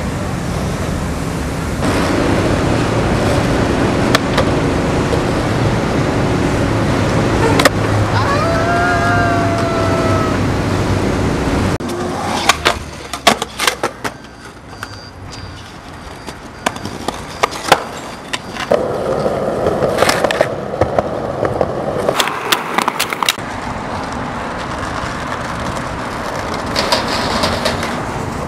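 Skateboard wheels rolling over pavement with street noise, a brief squeal near the middle of the rolling stretch. In the second half, a series of sharp wooden clacks from the board's tail pops and landings between stretches of rolling.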